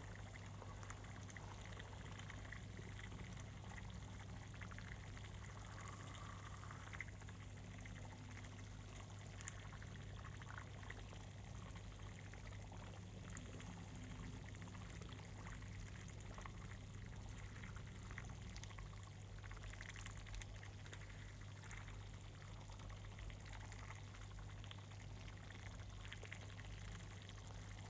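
Faint bubbling of bean stew simmering in a pot, over a steady low hum.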